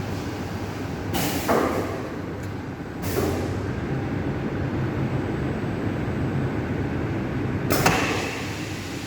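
CNC cutting table for carbon prepreg running with a steady low hum. It is broken by three short whooshing bursts, about a second in, about three seconds in and near the end.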